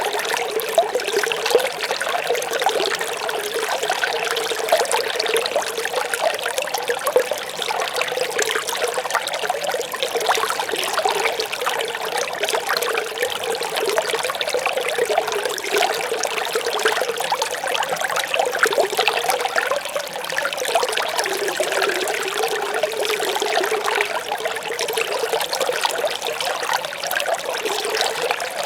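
A small stream babbling and trickling steadily, a continuous fine bubbling of running water with no pauses.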